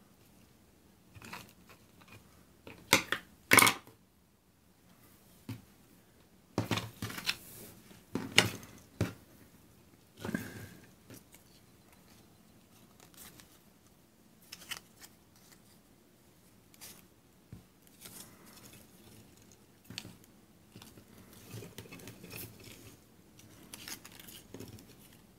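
Hands handling a netted mesh bag of wooden spoons, striped twine and paper tags: irregular rustling and crinkling, with a few sharper tearing or snipping noises in the first half.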